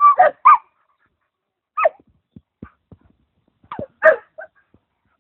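Bosnian coarse-haired hounds giving short, high yelping barks: three quick ones at the start, one about two seconds in, and two more near four seconds, with a few soft low knocks between the calls.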